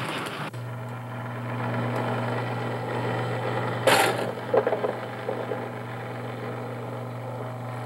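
Model train log-loader accessory running: a steady electric motor hum, with one sharp clack about four seconds in and a few lighter clatters just after as the logs are moved.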